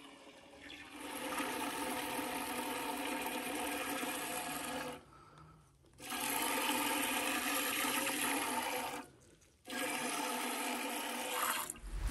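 Hand-milking a cow: milk squirting in streams into a nearly empty enamel pail, a steady hiss with a faint ringing tone from the pail. It comes in three stretches, broken by short pauses about five and nine seconds in.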